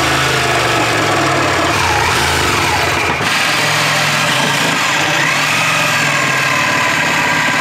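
Power tools cutting into a boat's wooden cabinetry: after an abrupt change about three seconds in, a DeWalt reciprocating saw runs continuously, its motor pitch wavering as the blade cuts through the wood.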